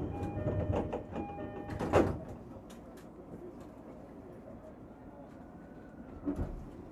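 Interior of a Japanese electric commuter train car, with the train's steady rumble and scattered clicks. Short steady tones break on and off in the first two seconds, a sharp knock comes about two seconds in, and a smaller knock comes near the end.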